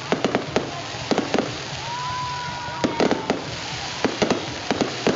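Aerial fireworks bursting in quick clusters of sharp bangs, a group roughly every second. A steady whistle runs for about a second and a half in the middle.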